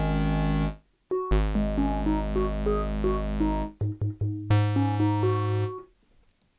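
Nunomo Qun mk2 synthesizer playing a stepping sequence of bright, buzzy notes over a low bass note. It stops just under a second in and starts again. Near the end it switches to short clipped notes, then held notes, before cutting off.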